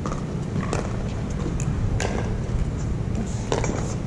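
Several sharp, irregularly spaced pops of pickleball paddles striking the hard plastic ball, over a steady low background hum.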